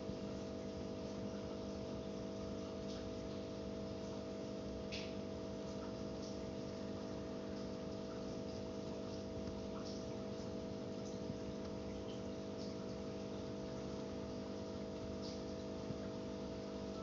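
Steady machine hum made of several constant tones, unchanging throughout, with a few faint short ticks or rustles, one about five seconds in.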